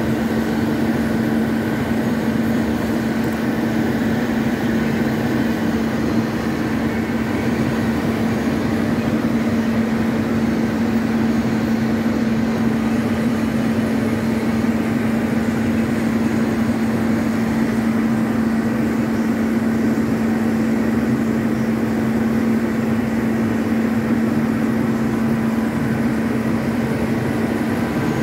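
Large metal lathe running steadily with a strong, even hum as its carbide-insert tool cuts into a rotating steel shaft.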